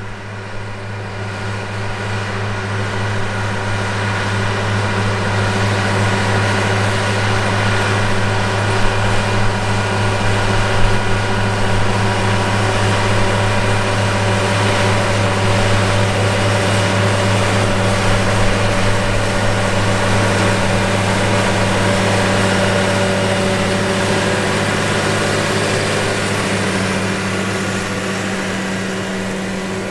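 Steiger Tiger III ST450 four-wheel-drive tractor's Cummins KTA1150 diesel engine running steadily under load while pulling a tandem disc. It grows louder over the first few seconds as the tractor approaches and fades a little near the end.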